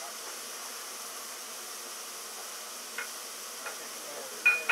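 Steady hiss of steam escaping low at the front of the standing steam locomotive 60163 Tornado, an LNER Peppercorn A1 Pacific, near its cylinders. A short sharp sound with a brief squeak cuts in near the end.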